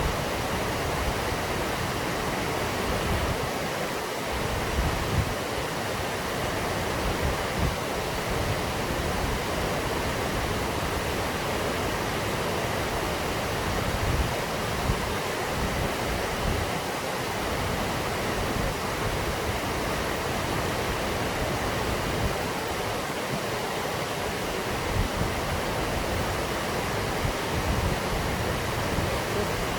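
Waterfall's water falling and splashing in a steady, unbroken rush.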